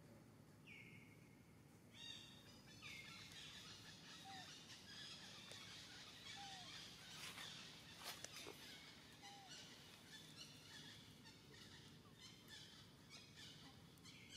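Faint outdoor ambience with scattered high bird chirps and a few short falling calls.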